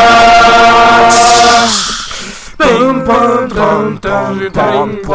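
A cappella voice imitating a marching band's music: a long held note, with a breathy hiss near its end, fades out about two seconds in. Short sung syllables with bending pitch follow.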